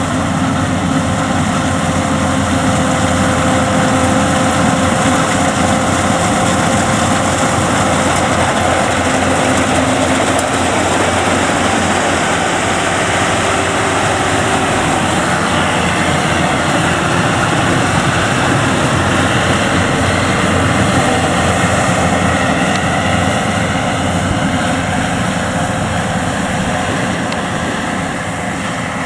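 Yanmar grain-tank combine harvester running steadily, with a loud, unbroken engine and machinery noise.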